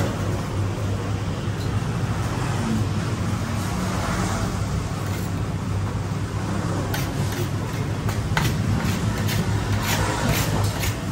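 Steady rumble of road traffic, with a few short clinks of a metal spoon scraping rice off a large ceramic platter.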